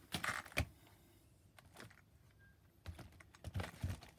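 Light clicks and taps of handling, in two short clusters: a few near the start and a quicker run about three seconds in.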